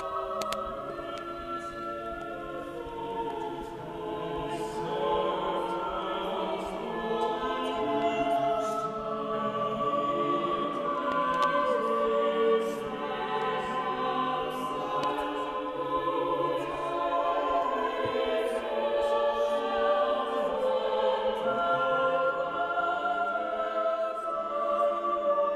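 Choral music: voices singing slow, held chords, growing a little louder after the first few seconds.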